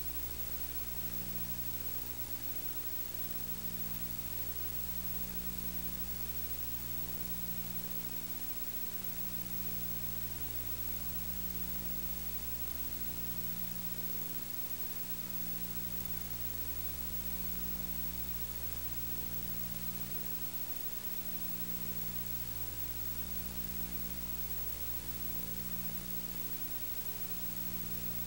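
Steady electrical mains hum with a layer of hiss from a VCR playing the blank lead-in of a VHS tape.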